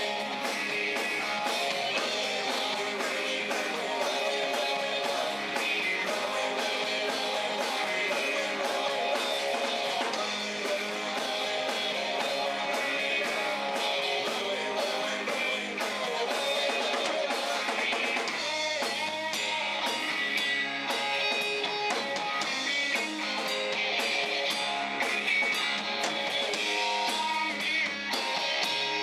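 Live rock band playing: electric guitar over a drum kit, steady and continuous.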